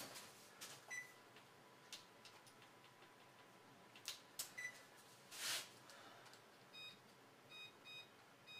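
Faint keypad beeps from an over-the-range microwave as its buttons are pressed, a short beep for each press, coming about two a second in the last couple of seconds as a timer is set. Earlier there are a few soft knocks and two single beeps.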